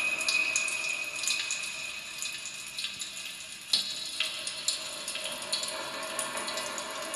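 Experimental sound-art texture made with popping candy, a straw and modified kitchen utensils: scattered watery crackles and fizzing clicks, over a thin high tone that fades out in the first two seconds, with one sharper click near the middle.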